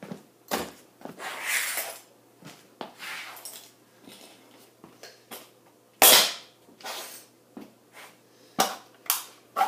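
A plastic toy G-scale locomotive being stomped on and crushed under sneakers on a hard floor: a string of about ten sharp cracks and crunches of plastic breaking. The loudest crack comes about six seconds in.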